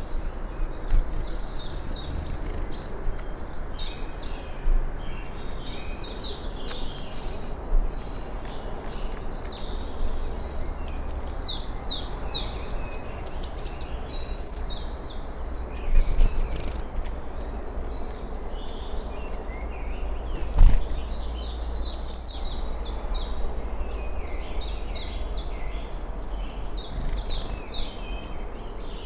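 Woodland songbirds singing together, many overlapping quick trills and chirps, over a steady low rumble. A single sharp knock comes about two-thirds of the way through.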